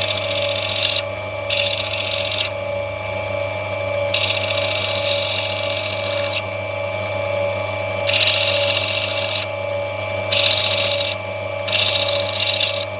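Opal-cutting machine's grinding wheel running with a steady motor hum, while a rough opal knobby is pressed against it in spells. Six loud hissing grinds of one to two seconds each, as the top of the stone is ground off.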